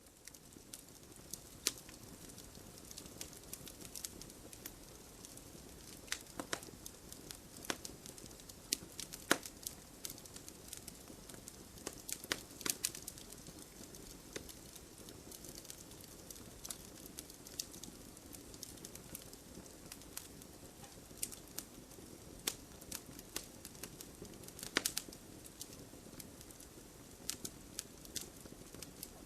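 Campfire burning: irregular sharp pops and crackles over a steady low rush of flame, fading in over the first second or so.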